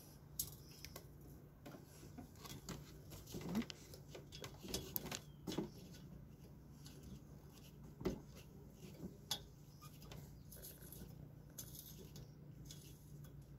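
Faint, irregular metal clicks and short creaks of an eye screw being turned by hand into the end of a steel fence top-rail tube lined with a strip of wood.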